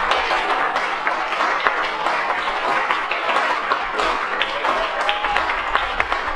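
A small crowd clapping and cheering a goal: a steady wash of hand claps and shouts.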